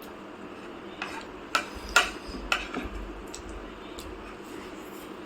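Tableware clicking and clinking as people eat: about six sharp separate taps of utensils against dishes, the loudest about two seconds in.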